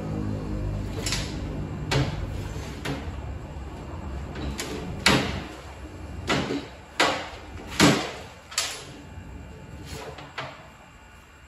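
Irregular hammer blows on metal: about a dozen sharp knocks at uneven spacing, the loudest coming between five and eight seconds in. A low hum runs under the first few seconds.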